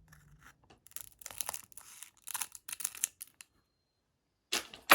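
Crinkling and rustling of a foil booster-pack wrapper and cards being handled, in a few short bursts with a louder rustle near the end.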